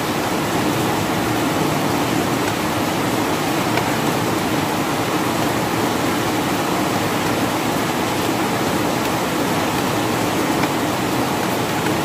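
Rain falling steadily: an even, unbroken hiss with no single drops standing out.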